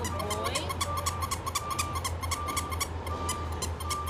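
A puppy gives a short, pitch-bending whimper from its travel crate about half a second in. Underneath run a steady low hum, a high beep repeating in short pulses, and fast, even ticking.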